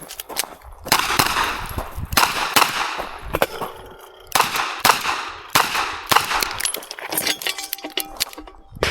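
Revolver shots fired in a fast string, each sharp crack followed by a ringing echo. There is a short pause near the middle before the shooting resumes.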